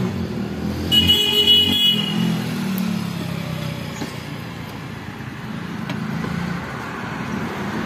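Motor vehicle engine rumble, with a brief high, horn-like tone about a second in.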